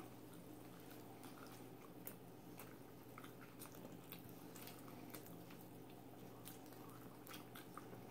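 Faint chewing of rotisserie chicken, with scattered soft wet mouth clicks over low room hum.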